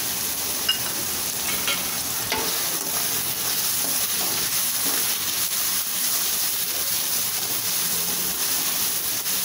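Sliced onions and green beans sizzling in hot oil in a kadai while being stirred with a spatula, a steady frying hiss with a few light clicks in the first couple of seconds.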